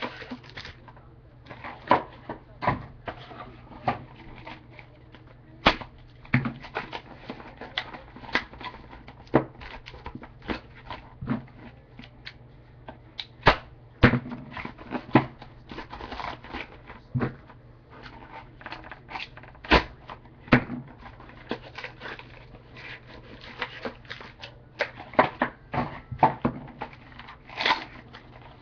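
Irregular clicks, taps and knocks of a trading-card box and its packs and cards being handled and opened, over a steady low hum.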